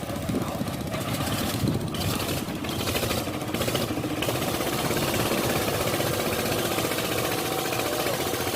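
A heavy machine's engine running steadily. About four seconds in it grows louder and harsher.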